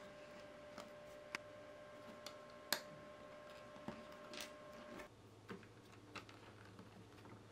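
Small plastic building bricks being handled and pressed together: scattered light clicks and snaps, the loudest about three seconds in, over a faint steady hum.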